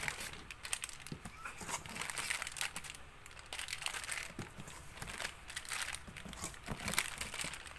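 Packaging crinkling and rustling in irregular crackles as six-piece packs of Colgate toothpaste are handled and counted.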